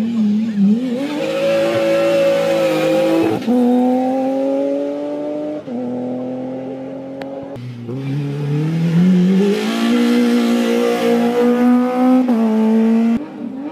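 Rally car engines accelerating hard past at full throttle. The pitch climbs, then drops sharply at each upshift, three times in the first half. After a break about halfway, a second pass (a rally-prepared Opel Astra) climbs in pitch through a long pull before another upshift near the end.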